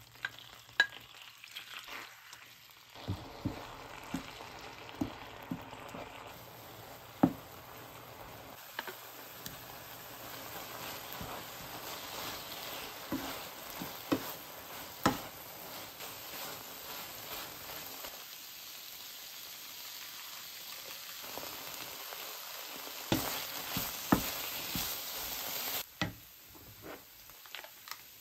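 Kimchi sizzling as it fries in oil in a nonstick frying pan, with sharp taps and scrapes of the spatula against the pan as it is stirred. The sizzling cuts off suddenly near the end.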